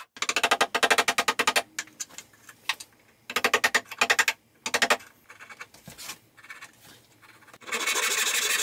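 Hand saw cutting a cherry chair leg in quick short strokes, in bursts with pauses and a few light ticks between them. A steadier, denser run of sawing starts near the end.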